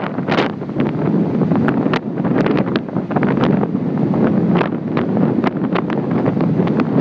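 Wind buffeting the microphone in gusts over the continuous rush of heavy surf breaking on the shore.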